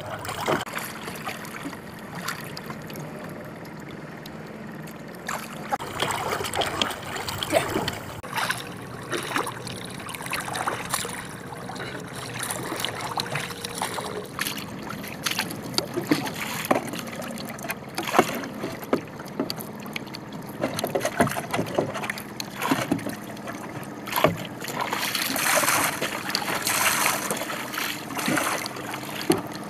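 Paddling a small outrigger canoe: the paddle dips and splashes irregularly, with water lapping and sharp knocks against the hull.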